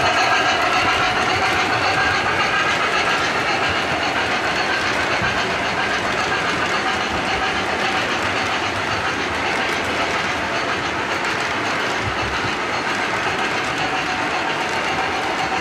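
Model train freight cars (MTH O-gauge military flatcars) rolling past on the track, wheels clattering steadily over the rails. A ringing tone fades away over the first few seconds.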